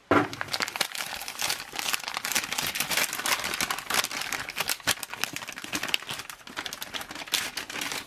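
MRE packaging crinkling and rustling as it is handled: the plastic flameless ration heater bag and the foil main-course pouch are pulled apart, with dense crackles throughout and a loud crinkle right at the start.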